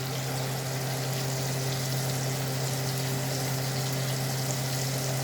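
Hot oil sizzling steadily as shrimp deep-fry, over a steady low electrical hum.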